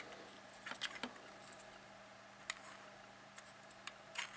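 Faint clicks and taps from hands handling the hard plastic shock mount and cold-shoe foot of a Rode VideoMic Pro. A few taps come about a second in, one midway, and a small cluster near the end, over a faint steady hum.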